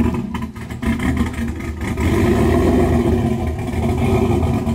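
Lowered Chevrolet Silverado pickup's engine running at idle, a steady low rumble, uneven and ticking for the first couple of seconds, then steadier and a little louder.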